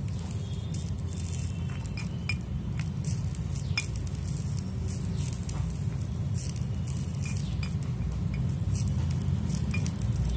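A metal utensil clinking and scraping against a cooking pan, in scattered light taps, over a steady low rumble.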